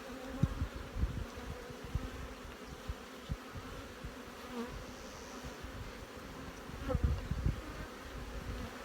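Many honeybees buzzing around an open hive in a steady hum. Short low thumps and rumbles come and go, loudest around seven seconds in.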